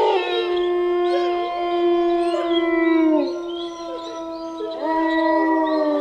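A pack of wolves howling in chorus: long held howls overlap, with higher, gliding howls weaving above them. One howl falls away about three seconds in and another rises near the end.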